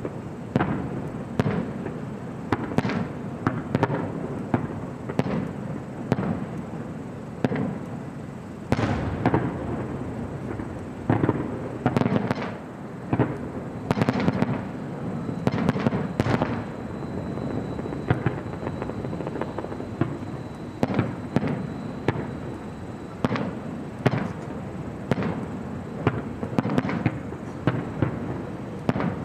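Fireworks display: aerial shells bursting one after another in an irregular barrage of bangs and crackles, several a second, over a continuous rumble.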